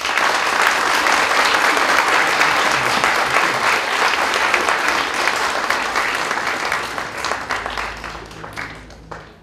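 Audience applauding, loud at first and fading out over the last few seconds.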